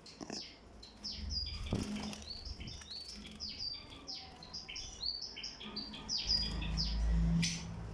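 Pet parrots chirping in a rapid run of short, high calls. A low rumble swells about a second in and again, louder, near the end.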